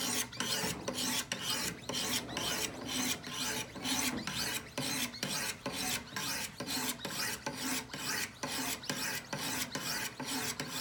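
Diamond sharpening stones on a Wicked Edge Generation 3 Pro guided sharpener scraping along a clamped ZT knife's edge, both sides worked at once in steady alternating full strokes, about three a second.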